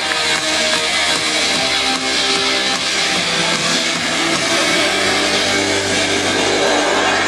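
Loud rock music led by electric guitar, playing without a break.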